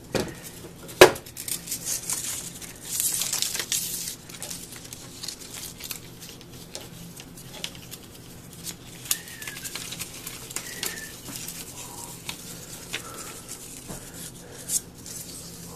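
A plastic filmstrip being handled and fed through a filmstrip viewer: crinkling and rustling of the film with scattered light clicks and knocks, the loudest a single sharp knock about a second in.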